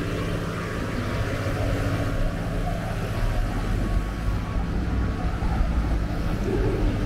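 City street traffic: vehicle engines running with a steady low hum under a continuous wash of road noise.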